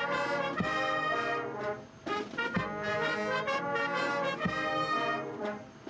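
Military brass band playing the national anthem: held brass chords with a bass drum stroke about every two seconds, three strokes in all, and a brief break between phrases about two seconds in.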